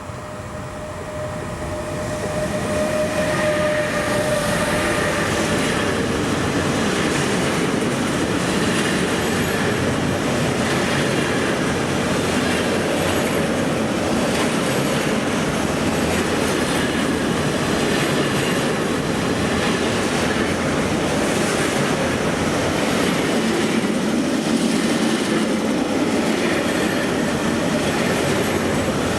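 Electric freight train passing close by. The Traxx E483 locomotive comes in with rising noise and a steady whine over the first few seconds. Then a long string of container wagons rolls past with continuous wheel-on-rail rumble and clatter.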